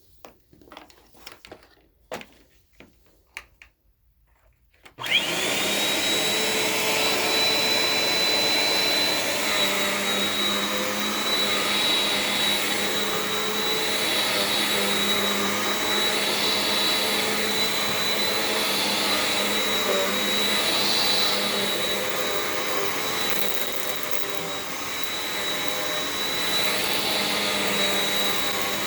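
Bissell Powerforce Compact upright vacuum switched on about five seconds in after a few faint clicks, then running steadily with a high whine. The sound swells and eases about every two seconds.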